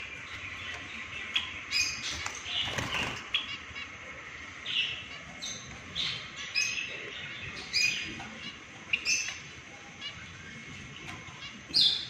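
Caged zebra finches and Java sparrows calling in short, high chirps that come irregularly, about one a second. A brief flutter of wings comes about two and a half seconds in.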